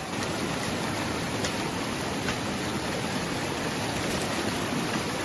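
Stream water rushing steadily over rocks, with a few faint clicks on top.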